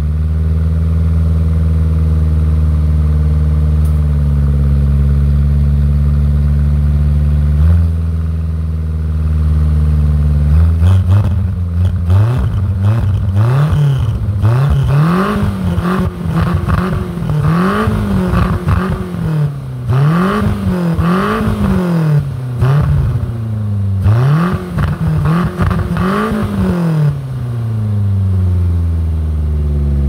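Car engine heard at the tailpipe through a one-off RS-R exhaust with a 75 mm silencer and its baffle fitted: it idles steadily with one short blip, then is free-revved in neutral about ten times in quick succession, the pitch rising and falling with each rev, before dropping back to idle near the end.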